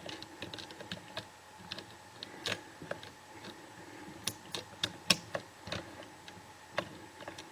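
Irregular small clicks and taps of a disc detainer pick turning the discs inside a clear plastic disc detainer training lock, the sharpest click about five seconds in.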